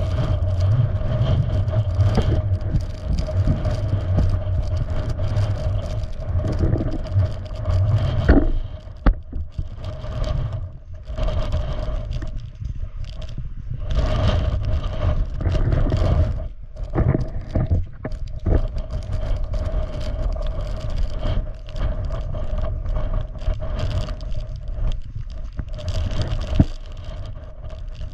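Wind buffeting the microphone of a moving camera, a steady low rumble with scraping and rustling from movement along a snowy trail. The rumble is strongest in the first eight seconds or so, then comes and goes in gusts.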